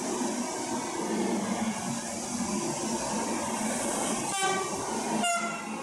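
Electric locomotive horn sounding two short toots, the second louder, about four and five seconds in, over the steady rumble of trains moving through the station.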